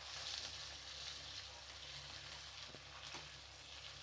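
Chicken leg pieces sizzling steadily in hot oil with fried onions in a non-stick pan, with a couple of light knocks from a metal slotted spoon turning them about three seconds in.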